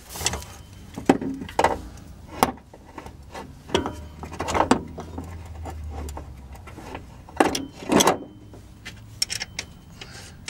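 Scattered metal clicks and knocks, about eight in all, as a new front strut assembly is held and worked up into its strut tower and its top nuts are handled.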